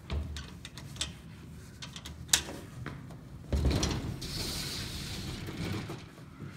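Haughton elevator's manual hall door and collapsible metal scissor gate being worked: a few latch clicks and one sharp clack, then about two seconds of metal gate sliding and rattling.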